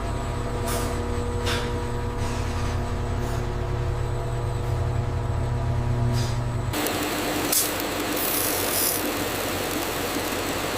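Factory machinery running with a steady hum and a few short hisses, switching abruptly about two-thirds of the way through to a louder rushing noise with a faint whine.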